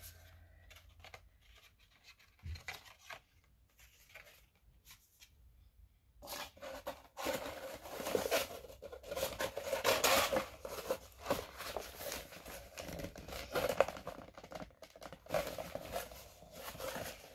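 Glue-covered paper being handled and pressed into place, rustling and crinkling. Mostly quiet with a few light knocks for the first six seconds, then busy rustling and scraping.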